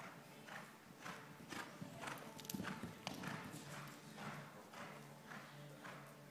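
Horse's hooves beating a steady rhythm on the arena's sand footing, about two hoofbeats a second, loudest about halfway through.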